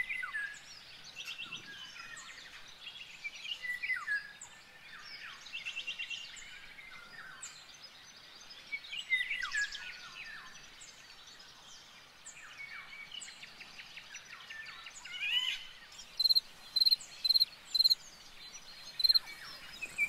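Small birds singing in a chorus of short chirps, trills and down-slurred notes. About four seconds before the end, an insect joins in, chirping in an even rhythm of about three chirps a second.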